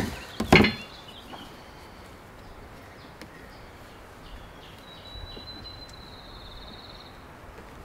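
A sharp knock about half a second in, from the plastic diesel can being handled, then quiet outdoor background with a bird's thin, high trill from about five to seven seconds, rising slightly.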